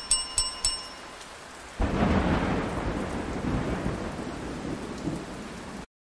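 Logo-intro sound effects: a quick run of bright ringing pings in the first second, then about two seconds in a sudden deep rush of noise that slowly fades away.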